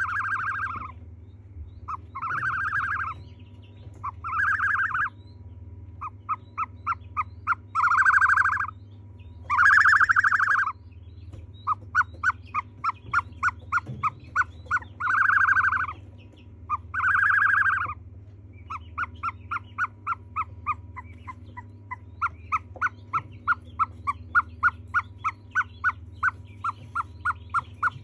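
Ostrich chick peeping: several drawn-out calls of under a second each, alternating with runs of short chirps at about two a second. A steady low hum runs underneath.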